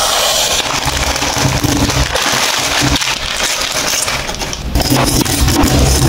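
Plastic wrapper of a Maggi instant-noodle packet crinkling as it is opened and handled, with the dry noodle block crackling as it is pulled out. A few sharper cracks come near the end.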